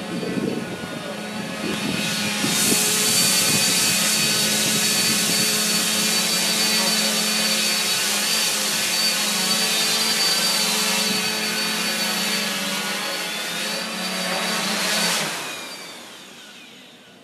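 Coaxial X8 multirotor drone's motors and propellers buzzing steadily with a high whine in flight, louder from about two seconds in, then spinning down near the end as it settles on the ground.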